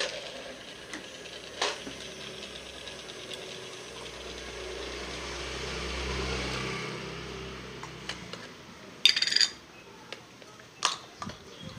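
Battery-powered Hello Kitty toy blender's small motor whirring for about four seconds, with a brief dip partway through. About nine seconds in comes a loud clatter of plastic, and a lighter click near the end.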